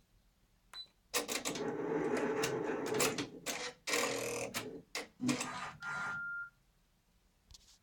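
Brother PR600 multi-needle embroidery machine running with a busy, clattering whirr for about five seconds, in short uneven spells. A short steady beep sounds as it stops. The owner suspects the upper shaft needs oiling or its bearings need replacing, because the noise persists after thorough oiling at the front.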